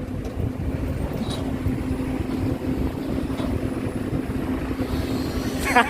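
Engine running steadily: a continuous low rumble with an even hum.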